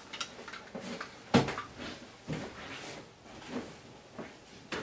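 A few light knocks and clicks of handling in a small room, the sharpest about a second and a half in.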